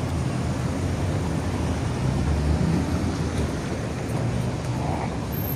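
Outdoor street noise: a steady low rumble of car traffic mixed with wind buffeting the microphone, swelling a little about two seconds in.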